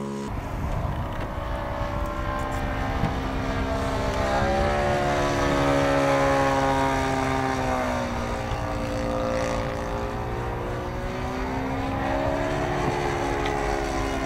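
Cessna 182 single-engine propeller plane flying overhead: a steady engine and propeller drone whose pitch rises slowly a few seconds in, sinks, then rises again near the end as the plane passes.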